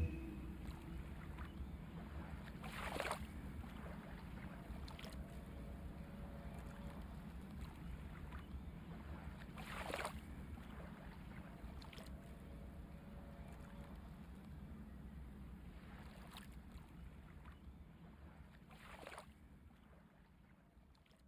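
Faint steady low hum with a few soft brushing swishes spaced several seconds apart, fading away near the end.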